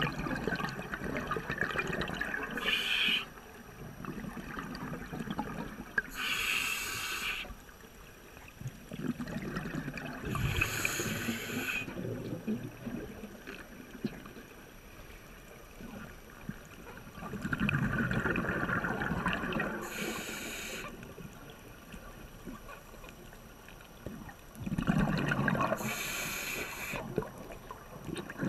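Scuba diver breathing through a regulator underwater: exhaled bubbles bubble and gurgle in bursts every few seconds, each with a short hiss, with quieter stretches between breaths.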